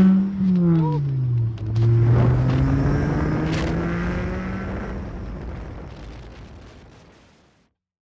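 Volkswagen Rabbit's 2.5-litre five-cylinder engine revved through an exhaust with no resonators. The revs fall away, pick up again about two seconds in, then sink slowly as the sound fades, cutting off shortly before the end.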